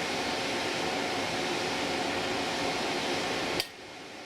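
Steady whirring noise like a running shop fan, which cuts off abruptly with a click about three and a half seconds in.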